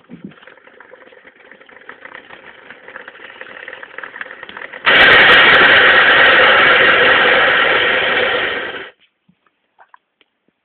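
Two-stroke engine of a Derbi GPR 50 moped with a 70 cc kit running, quieter at first, then much louder for about four seconds from about five seconds in before cutting off abruptly. The owner reports an odd rubbing noise whenever the engine runs, which goes away when the clutch is pulled in.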